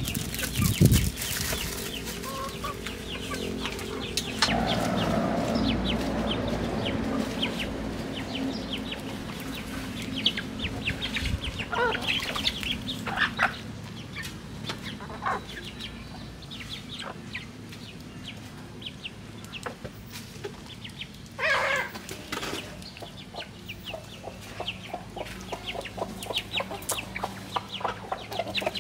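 A flock of chickens clucking while they feed, with many short clicking taps as they peck. One louder, longer call comes about three-quarters of the way through.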